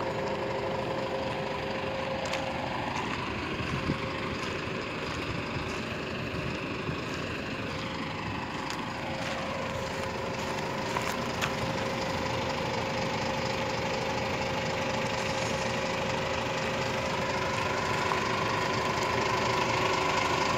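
Hino Victor 500 dump truck's diesel engine idling steadily, growing a little louder near the end.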